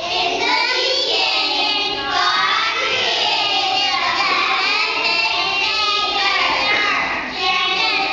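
A class of kindergarten children singing a song together, with a short break between phrases about seven seconds in.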